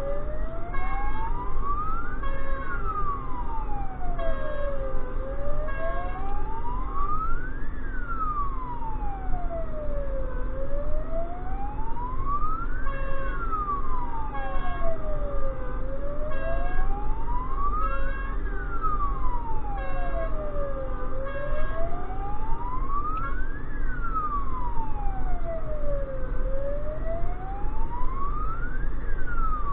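Fire engine's wail siren heard from inside the cab, sweeping slowly up and down about every five seconds, over the steady low rumble of the truck's engine.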